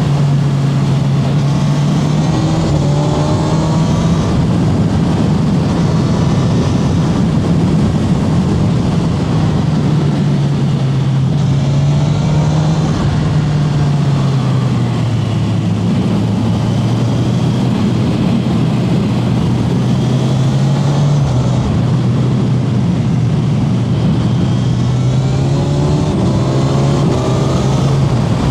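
Kawasaki Z1100 SE's air-cooled inline-four engine running steadily under way, its pitch slowly rising and falling with the throttle.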